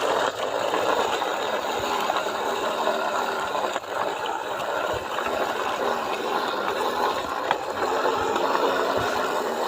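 Toy truck moving along the ground with a steady rattling, grinding noise.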